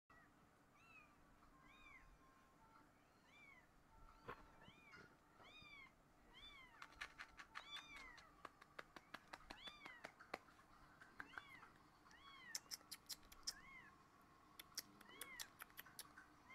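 Young kitten mewing over and over, short high-pitched mews that rise and fall, about one or two a second, while it toddles about. Runs of sharp faint clicks come in among the mews in the second half.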